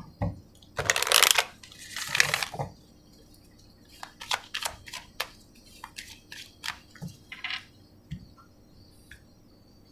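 A deck of oracle cards being shuffled by hand: two longer loud shuffling rustles in the first three seconds, then a run of short clicks and taps of the cards, about two to four a second, thinning out near the end.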